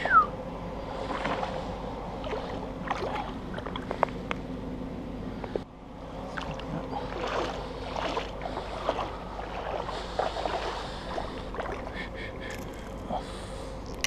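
Water splashing and sloshing in a shallow river as a hooked brown trout is landed and handled by hand, with irregular small splashes and knocks over the steady sound of the water.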